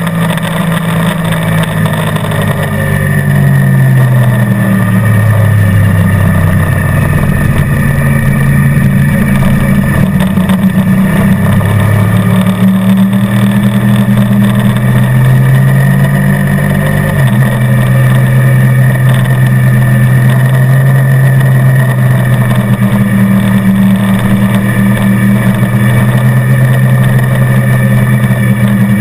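Motorcycle engine running at track speed, its pitch falling as it slows about 3 seconds in, climbing again around 11 seconds, and stepping abruptly about 17 seconds in.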